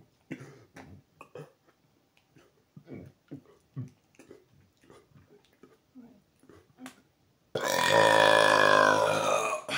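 A man's run of short, soft gulps and clicks, then, about seven and a half seconds in, a long, loud belch with a clear pitch that slides down as it goes on.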